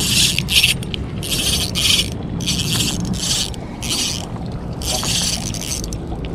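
Ryobi Smurfs 500 spinning reel's drag buzzing in a string of short bursts as a hooked fish pulls line against a hard-bent ultralight rod.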